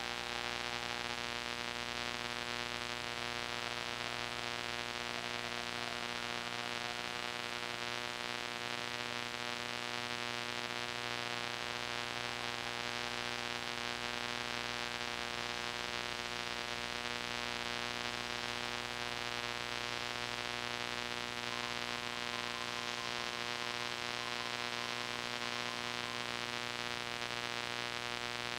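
Steady hiss and electrical hum from an old VHS tape recording, unchanging throughout, with a faint wavering tone or two in the middle range.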